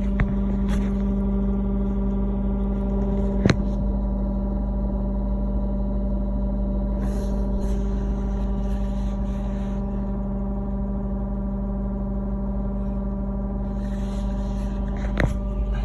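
Loud, steady buzzing hum from an unidentified part under the driver's seat of a Lexus GS F, holding one pitch throughout, with a couple of brief clicks. The owner does not know what is causing it.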